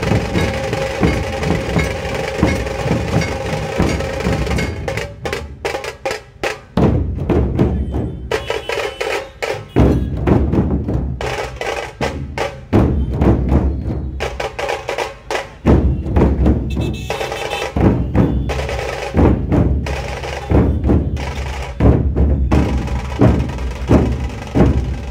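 Dhol-tasha troupe drumming: deep dhol beats under sharp, rapid tasha strokes, played in rhythmic phrases with brief pauses between them.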